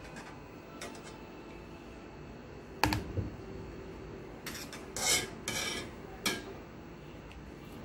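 Kitchen utensils and cookware knocking and clinking a handful of times, the loudest knock about three seconds in and a quick cluster about five seconds in, as blanched tomatoes are moved into a tub of iced water.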